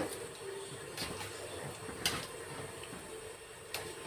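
A metal fork clinking against a steel wok a few times as chunks of beef are stirred in water being parboiled to draw out scum and fat, over a steady low rush from the simmering pot.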